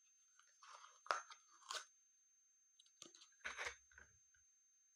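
Soft crackling and squishing of slime being handled and pried from its small container, in two short clusters.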